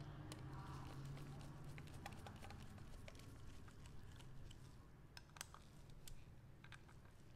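Faint, irregular light clicks and taps over a low steady hum.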